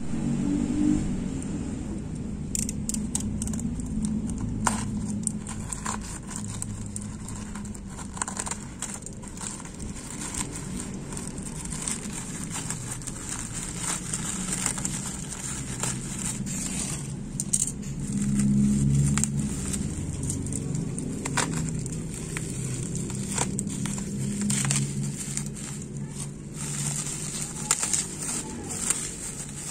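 Plastic packaging handled and torn open: a black poly mailer bag, then bubble wrap and a plastic blister pack, crinkling and crackling in many small clicks. A steady low rumble runs underneath.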